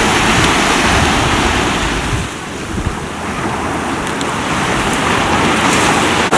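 Surf: small waves breaking and washing onto a sandy beach, mixed with wind rumbling on the microphone. It eases off for a moment a little after two seconds.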